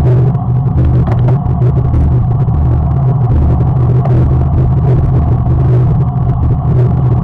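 Loud, steady low rumble of wind and road noise on a camera moving with a bicycle race, with a few faint clicks scattered through it.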